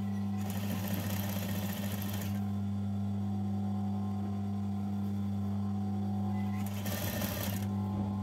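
Sewing machine stitching in two short runs: about two seconds starting half a second in, and a shorter run under a second near the end, over a steady low hum.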